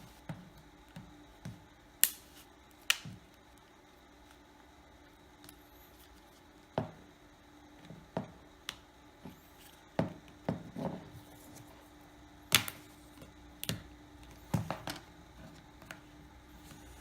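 Plastic retaining clips of an Asus Zenfone AR's snap-on back cover clicking loose one after another as a pry tool works around the edge: about fifteen sharp clicks at uneven intervals, over a faint steady hum.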